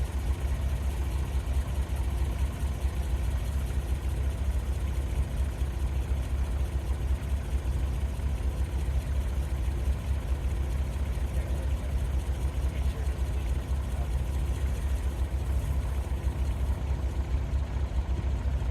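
Doosan DX35z mini excavator's diesel engine running steadily at an even pitch.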